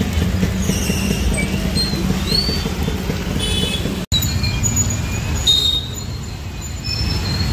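Road traffic on a flooded street: a steady low rumble of car, motor-scooter and auto-rickshaw engines moving slowly through standing water. The sound cuts out for an instant about four seconds in.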